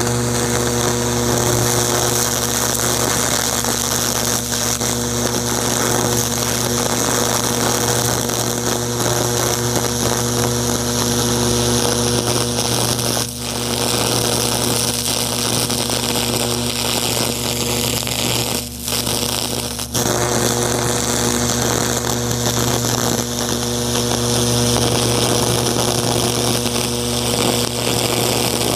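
High-voltage electric arc burning into a pumpkin's skin from the tip of a metal probe: a loud, steady buzzing hiss over a low hum. It cuts out briefly three times around the middle.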